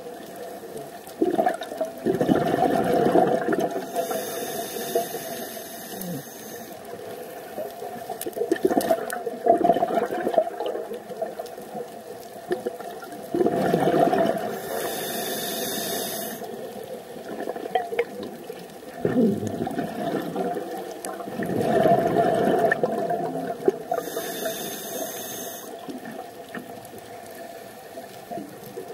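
Scuba diver breathing through a regulator underwater: three hissing inhales about ten seconds apart, with bursts of bubbling exhaust between them.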